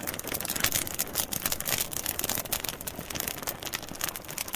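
Dense, irregular crackling, many small pops a second, with no speech or music.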